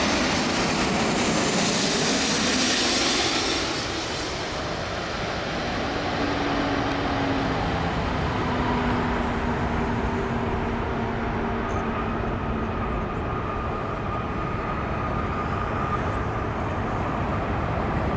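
Airbus A340-600 with four Rolls-Royce Trent 500 jet engines passing low overhead on final approach, a loud rushing jet noise that fades after about four seconds. After that, a steadier mix of freeway traffic and distant jet noise from the landing airliner.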